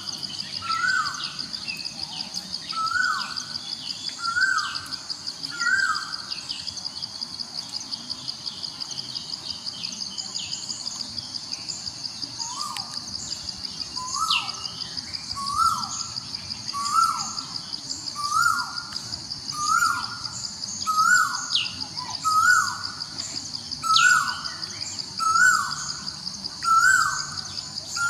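A bird calling over and over, a short sliding note about every second and a half with a pause of several seconds in the middle, over a steady high-pitched insect trill. A few sharp falling whistles come in during the second half.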